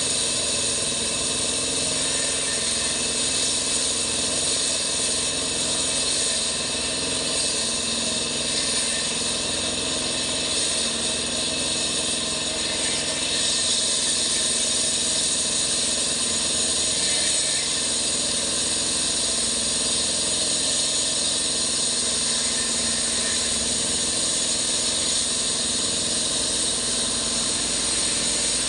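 Diesel concrete and asphalt cutter running steadily, a dense even engine noise with a strong hiss over it.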